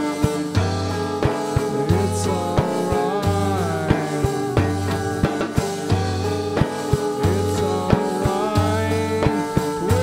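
Live band playing a psychedelic rock song: a woman and a man singing over electric guitars, with a steady drum beat and a pulsing bass line.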